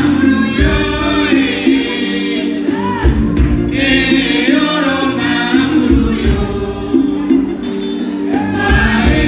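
Live Malian band music: male voices singing together in phrases over a steady bass line, electric guitars, keyboard and drum kit, with the singing dropping out for a few seconds in the middle.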